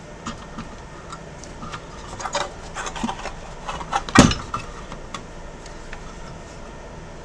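Handling noises on a workbench as the console's circuit board and tools are moved and set down: scattered light clicks and knocks, with one louder thump about four seconds in.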